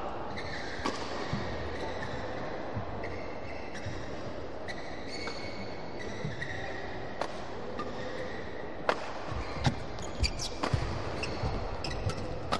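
Badminton rally in a sports hall: sharp cracks of rackets striking the shuttlecock start about seven seconds in and come faster toward the end, with footfalls thumping and shoes squeaking on the court mat over the hall's ambient noise.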